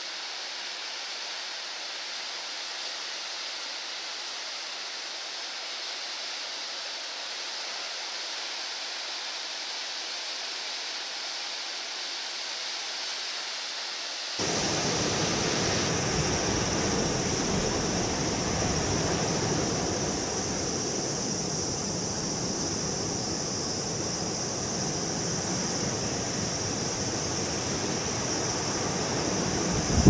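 Heavy storm surf, driven by an approaching typhoon, breaking on a rocky coast as a steady wash of noise. About halfway through it cuts abruptly to a louder, fuller wash with more low rumble.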